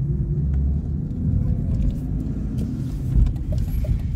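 Car driving, heard from inside the cabin: steady low engine and road rumble. A light, regular ticking starts near the end.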